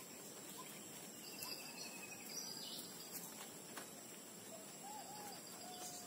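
Faint bird calls: short chirps repeating early on, a brief buzzy trill, and curving whistled calls with one longer flat whistle near the end, over a steady high-pitched insect drone. A few sharp clicks sound in between.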